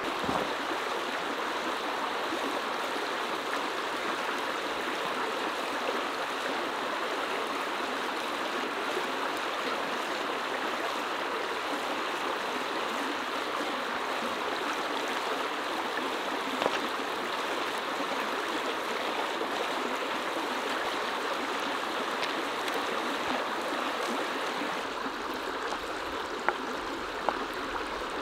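Creek water rushing steadily, with a few brief faint clicks.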